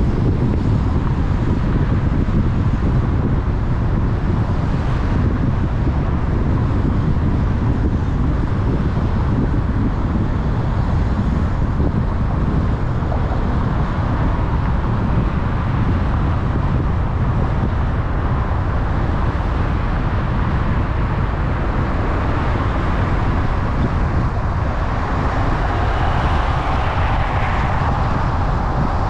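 Steady road noise of a car driving through city traffic: a low rumble with tyre hiss. The hiss grows somewhat louder over the last several seconds.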